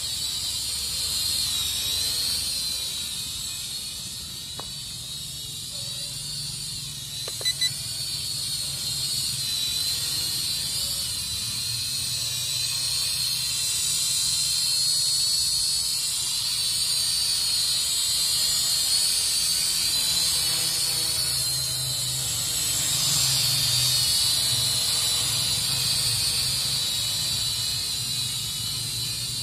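Syma X5UW quadcopter's small motors and propellers whining steadily at a high pitch as it hovers, the pitch drifting up and down. Two short sharp clicks about seven seconds in.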